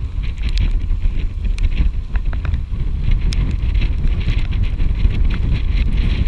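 Wind buffeting the microphone on a catamaran under way: a steady, heavy low rumble with scattered crackles.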